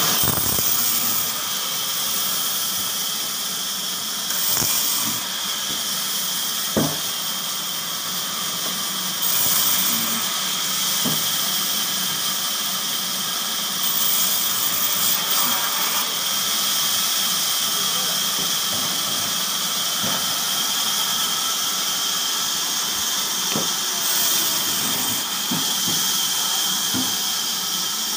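Large vertical band saw running and cutting crosswise through a log: a steady high hiss with a constant high whine. A few short knocks of wood are heard now and then.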